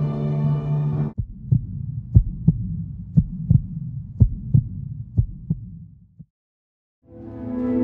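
Heartbeat sound effect: low paired thumps, about one pair a second, over a low hum. They start when the music cuts off about a second in and fade away about a second before music swells back in near the end.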